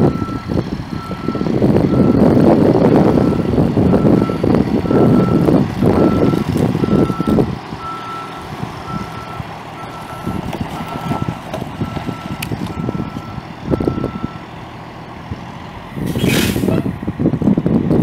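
Backup alarm of a 2000 Blue Bird LTC40 bus beeping about once a second over the low running of its Cummins ISM 10.8 L straight-six turbo diesel. The engine is loud for the first half and then drops. The beeping stops about 14 seconds in, and a short hiss of air from the air brake system follows about two seconds later.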